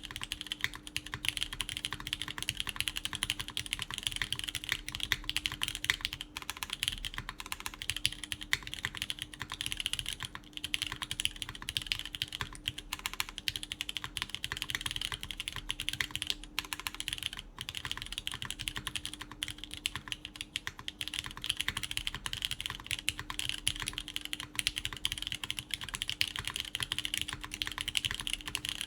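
Steady, fast typing on a QK Neo80 Cu mechanical keyboard with lubed Cherry MX Orange switches, GMK Carbon keycaps, a PEI plate and silicone gasket mount: a continuous stream of key clacks with no pauses.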